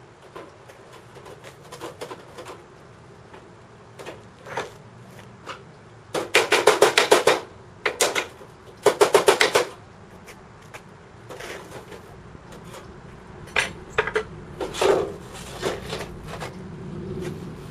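Sheet aluminum being knocked and worked on a metal welding table: scattered clanks and taps, with two runs of rapid strikes, each about a second long, near the middle as the loudest part.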